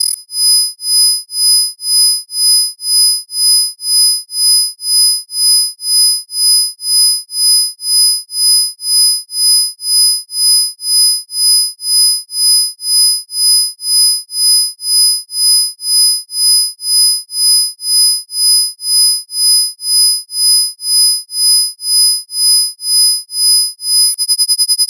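Electronically generated pure sine tones, the loudest two high and an octave apart with fainter lower tones beneath. They pulse on and off about twice a second: a 2 Hz isochronic tone made for brainwave-entrainment listening. Near the end the pulsing switches to a much faster rate.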